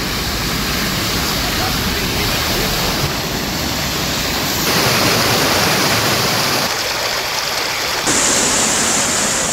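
Floodwater rushing across a paved road and over stones: a steady, loud rushing noise that changes abruptly a few times as the shots cut.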